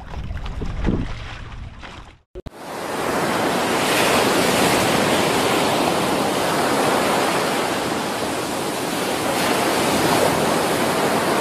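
Wind and water against the microphone for about two seconds, then after a short break, a loud steady rush of ocean surf breaking.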